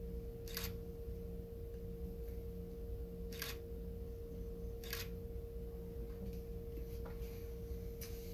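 Camera shutter clicking four times, a couple of seconds apart, over a steady electrical hum.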